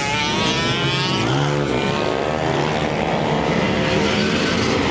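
Several scooter and motorbike engines revving hard together as they pull away from a drag-strip start line, with a Harley-Davidson bagger in the pack. One engine's pitch sweeps up and back down about a second and a half in.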